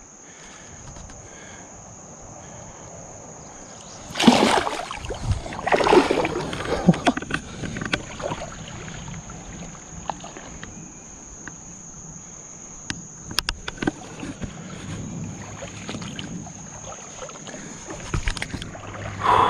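Water splashing and sloshing about four seconds in, for a few seconds, as a large smallmouth bass is let go in shallow creek water and swims off. A steady high insect buzz runs beneath.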